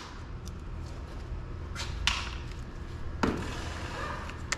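A few short, sharp clicks and knocks of hard parts being handled on a hybrid battery pack, about two seconds in, again past three seconds and near the end, over a low steady hum.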